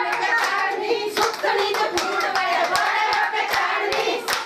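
A group of women clapping their hands in a steady beat, about two and a half claps a second, while women's voices sing along.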